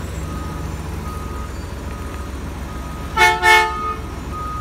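American LaFrance garbage truck's horn sounding two short blasts close together about three seconds in, the loudest thing heard. Under it the truck's engine idles, and its reversing alarm beeps steadily about every three-quarters of a second.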